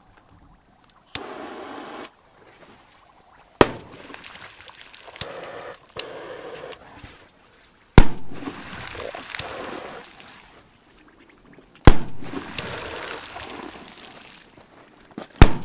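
Firecrackers exploding one after another in a shallow puddle: four sharp bangs, each followed by water spraying and splashing back down, the second and third bangs the loudest. Two short hissing stretches come before the second and third bangs.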